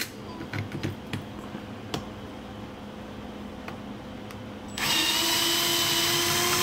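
A power drill-driver driving the screw that holds the sheet-metal junction box cover on a dishwasher. The motor runs at a steady pitch for about two seconds, starting about five seconds in. Before it, a few light clicks and taps.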